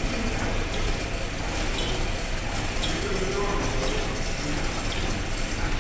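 Electric cigarette-making machine running with a steady mechanical whirr and a light tick about once a second, the one noise the machine makes.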